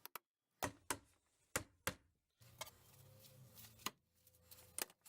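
Hammer driving nails into pallet wood: faint, sharp knocks at irregular spacing, several coming in quick pairs.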